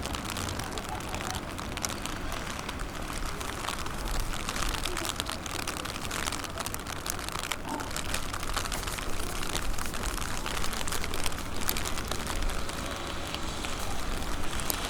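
Fireworks crackling: a dense, continuous run of small sharp pops and sizzles, with no big burst.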